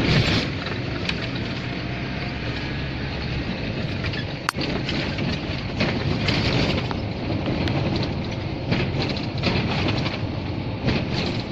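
Steady engine and road noise inside the cab of a GAZelle van driving on an asphalt road, with rattles and one sharp click about four and a half seconds in.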